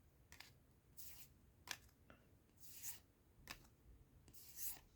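Faint soft swishes of trading cards sliding over one another as they are flipped through one by one, with a few small clicks between them.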